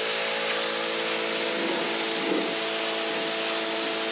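Pressure washer spraying water onto a cinder-block wall: a steady hiss of spray with a steady hum underneath.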